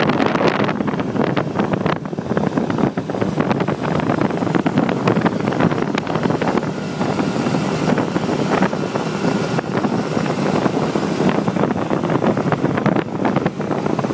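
Wind rushing and buffeting over the microphone of a moving motorbike, mixed with the running of small motorbike engines at cruising speed.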